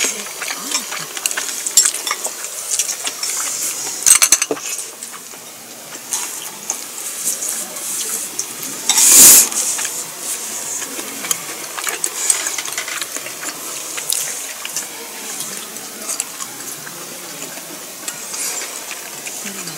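Close-up eating sounds: chopsticks and tableware clicking and clinking, mixed with mouth noises of chewing. A short, loud rustle of a paper tissue comes about nine seconds in.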